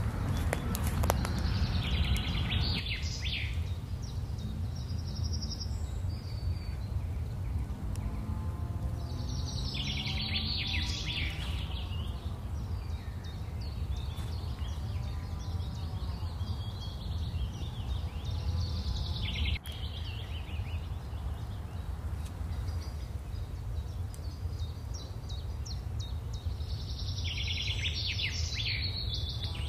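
Woodland birdsong: a songbird's short, high, fluttering phrase, repeated about every eight seconds over a steady low background rumble.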